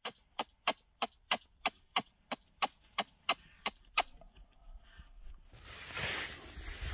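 A run of about a dozen sharp, evenly spaced clicks, about three a second, that stop about four seconds in; a steady rushing noise sets in near the end.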